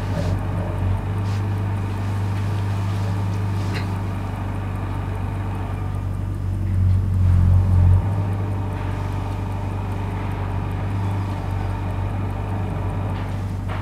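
A steady low droning hum that swells for a second or so about seven seconds in, with a few faint clicks over it.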